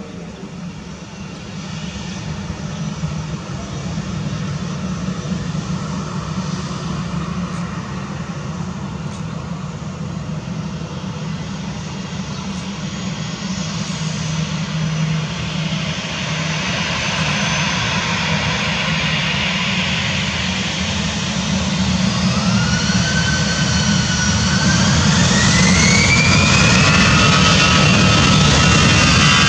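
Airbus A320-214's CFM56 jet engines running with a steady rumble as the airliner taxis, then spooling up toward takeoff power from about three-quarters of the way through: a whine that rises in pitch while the sound grows louder.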